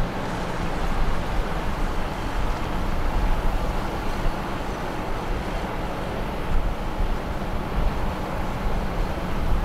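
Steady low rumble of boat engines with water noise, as a motor yacht moves along slowly; no single event stands out.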